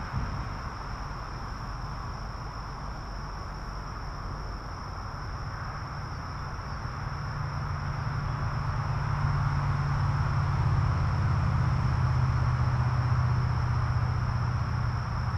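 Steady chirring of insects in the background, one constant high tone over a softer hiss. A low rumble builds about halfway through and holds to the end.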